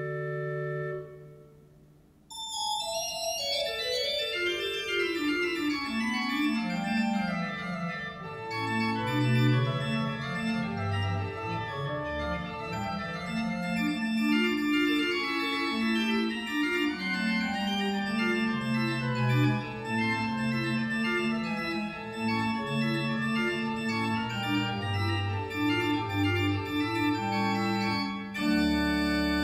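Small positive pipe organ of five and a half stops playing. A held chord dies away about two seconds in. A new piece then opens with a quick run of notes falling from high to low and moves on into busy counterpoint over a moving bass line.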